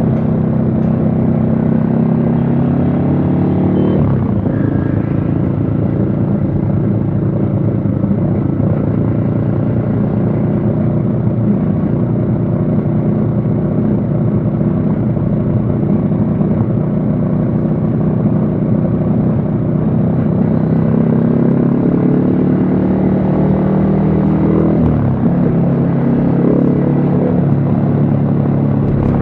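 Yamaha XSR155's single-cylinder engine running under way. Its pitch climbs, drops sharply about four seconds in as a gear is changed, holds fairly steady, then climbs again to another drop near the end.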